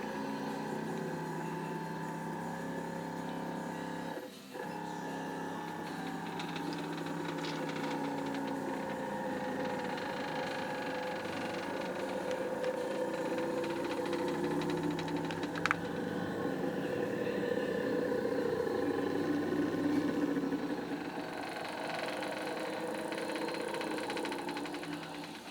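Home-built MaXYposi CNC machine running, its stepper motors driving the axes with a whine of several tones that shift in pitch as the moves change speed. There is a brief pause about four seconds in.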